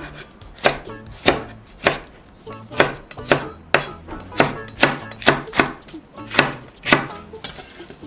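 Chef's knife slicing green and red chili peppers on a wooden cutting board: a dozen or so sharp knocks of the blade on the board, about two a second, unevenly spaced.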